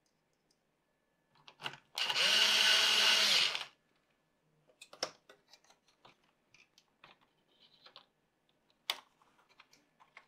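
Cordless electric screwdriver runs for about a second and a half, driving in a screw on the laptop's cooling-fan housing, with a short blip just before. After it, light scattered clicks and knocks of the motherboard and small parts being handled and set back into the plastic case.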